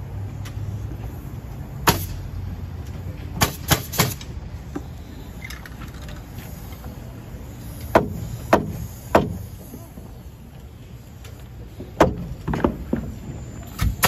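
Pneumatic framing nailer firing nails into the bottom plate of a newly raised stud wall: about a dozen sharp shots in irregular clusters of two or three.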